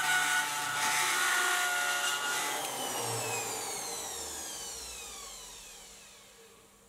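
Hand-held rotary tool with a carbide burr grinding the edge of thin brass sheet, a steady whine with a rasping hiss. About two and a half seconds in the grinding stops and the tool winds down, its whine falling steadily in pitch and fading out.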